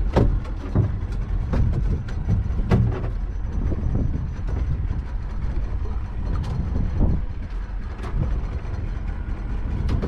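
Steady low rumble of wind and water around a small open fishing boat at sea, with several sharp knocks and thumps on the boat's deck.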